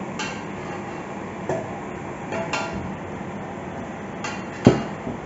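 Metal spatula clinking and scraping against a wok of frying onions, several separate strikes with the loudest near the end, over a steady hiss.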